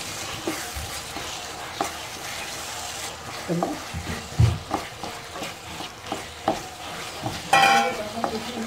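Mutton pieces in a spiced onion-tomato masala sizzling as they fry in a non-stick pan, with a wooden spatula stirring and knocking against the pan in scattered taps and scrapes. A brief, louder, higher-pitched scrape comes near the end.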